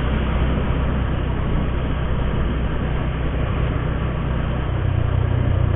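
Motorcycle engine running, with steady road and wind noise, picked up by an action camera's microphone; it grows a little louder about five seconds in.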